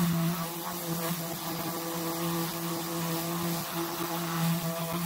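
Electric random orbital sander running steadily on a plexiglass panel, sanding the surface: a steady hum over a hiss.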